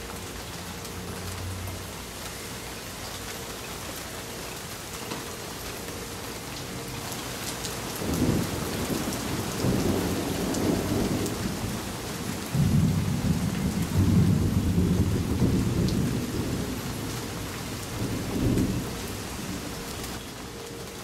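Steady rain falling, with a long roll of thunder that starts about a third of the way in, rumbles in several waves, and dies away near the end.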